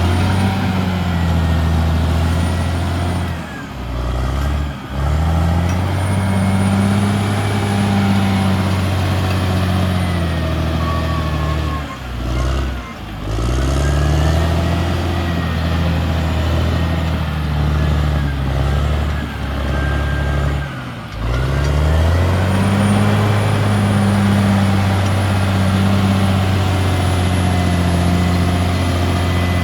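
Caterpillar D6R XL bulldozer's diesel engine running under load, with a faint high whine above it. The engine note drops and climbs back sharply four times, about 4, 5, 13 and 21 seconds in, as the throttle eases off and picks up again.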